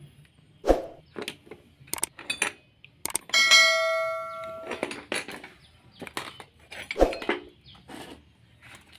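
Metal tools and parts knocking and clinking during hand work on a motorcycle disc brake, with one ringing metallic clang about three and a half seconds in that fades over about a second and a half.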